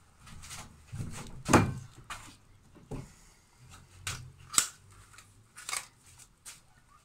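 Irregular sharp clicks and knocks from tools and materials being handled close by, about half a dozen, the loudest about one and a half seconds in.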